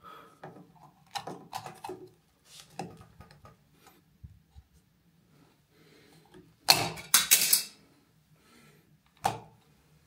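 Screwdriver tip and fingers working an old wall light switch, with small scattered clicks and scrapes, then a louder clatter of snaps and scraping about seven seconds in as the switch rocker is pried off, and a single sharp click near the end.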